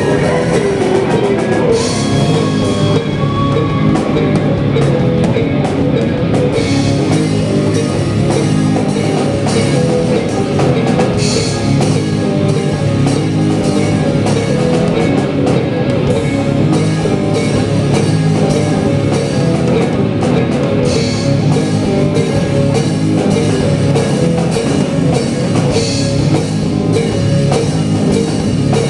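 Acoustic drum kit played along to a rock song with guitar, with a cymbal crash every few seconds.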